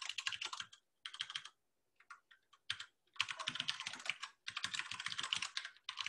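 Typing on a computer keyboard: quick runs of keystrokes, a lull with a few single keys about two seconds in, then a long unbroken run of fast typing.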